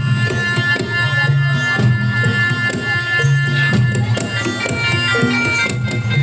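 Reog Ponorogo gamelan music: a shrill reed horn (slompret) holding notes over quick kendang drum strokes and booming gong and kenong tones.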